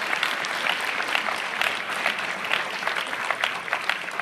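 A crowd of people applauding steadily: many hands clapping at once.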